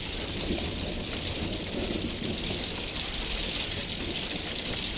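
Heavy rain falling steadily on the metal roof of a pole shed, an even hiss of drops with a constant low roar beneath it.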